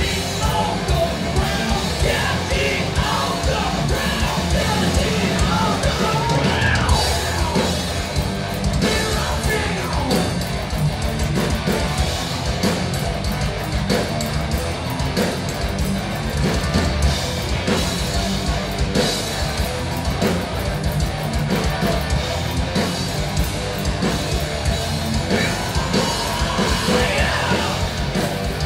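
Loud live rock band playing: drum kit, electric guitar and bass with two vocalists singing.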